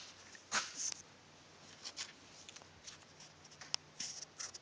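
Faint, scattered handling noises: short rustles and scrapes with a sharp click a little before the end.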